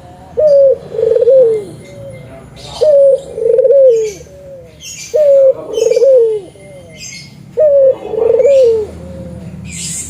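Spotted dove (tekukur) cooing: four repeated phrases, each a short note followed by a longer, wavering coo that falls at its end, about every two and a half seconds. Faint high chirps sound between the phrases.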